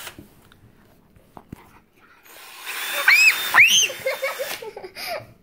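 Hand-held cordless drill run briefly, its motor whirring with a high whine for about two seconds, starting a little over two seconds in.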